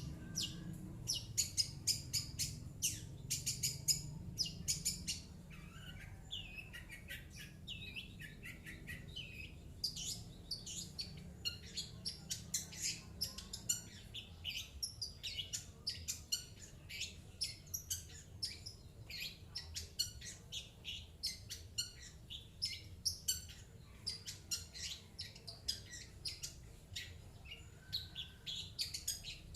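Long-tailed shrike (cendet) singing a rapid, unbroken run of short high chirps, several a second, with a few lower slurred notes mixed in.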